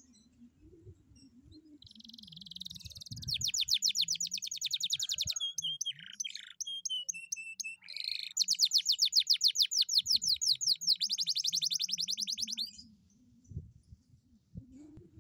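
A domestic canary singing one long song of fast rolling trills, broken in the middle by a few slower, lower whistled notes. It starts about two seconds in and stops a couple of seconds before the end.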